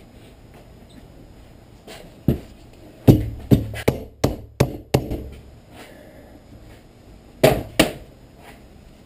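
Sharp knocks: one single knock, then a quick run of six at about three a second, then two more close together near the end.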